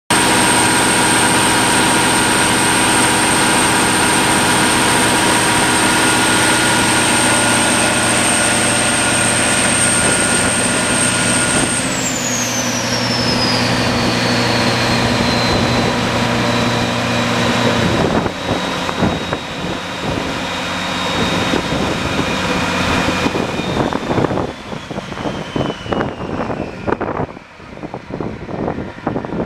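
A 300 kW MTU / Detroit Diesel generator's diesel engine running steadily at governed speed with a high whine. About twelve seconds in the whine glides steadily down in pitch; about six seconds later the engine's steady running stops, leaving the whine coasting lower among irregular clicks and knocks as the sound dies away, the sound of the set being shut down.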